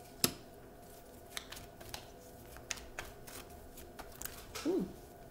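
Tarot deck being shuffled by hand: a sharp snap of cards about a quarter second in, then scattered light clicks of cards sliding and tapping together. A brief low hum of a voice near the end.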